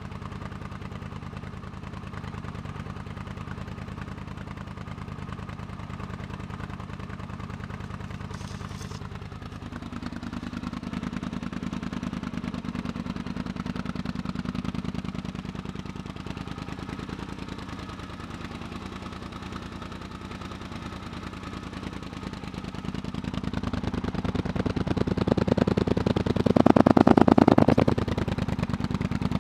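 Polaris Sportsman 850 XP's twin-cylinder engine idling through a custom aftermarket exhaust, heard close to the muffler outlet. About ten seconds in the idle rises a little for several seconds and then settles. Near the end the engine is revved up and dropped back.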